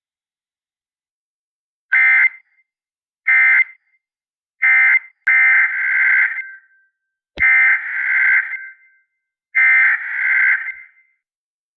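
Emergency Alert System SAME data bursts: three short buzzy bursts that close the warning, then three longer bursts that open the next alert, each about a second apart. A single click sounds about seven and a half seconds in.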